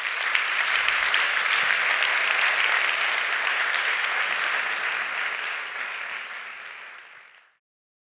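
Audience applauding, a dense steady clapping that fades out near the end.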